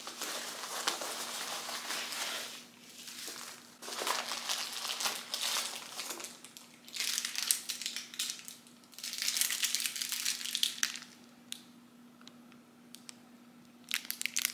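Packing peanuts and clear plastic wrap rustling and crinkling as hands dig through a cardboard box and lift out a wrapped bar of soap. The rustling comes in four bursts over about eleven seconds, then quieter handling with a few clicks.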